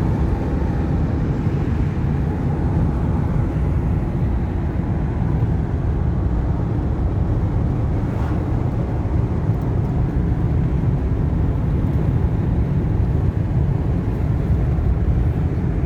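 Steady low rumble of a 2014 Ford Econoline E-250 van on the move, road and engine noise heard from inside the cabin.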